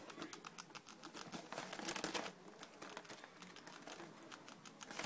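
Pet rats rustling about in shredded paper bedding, making irregular light clicks and crinkles, busiest about two seconds in.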